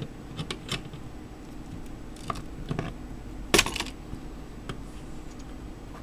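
Scattered light clicks and taps of pliers and small metal hex standoff screws being worked loose and handled at a motherboard's connector. The sharpest click comes about three and a half seconds in.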